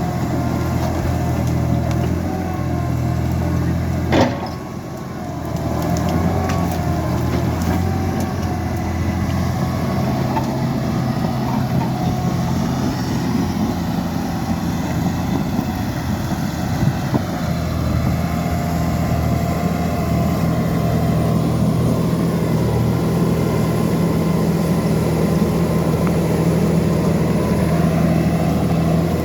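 Liebherr 754 bulldozer's diesel engine running steadily under work. About four seconds in there is one sharp knock, after which the engine sound briefly drops and picks back up.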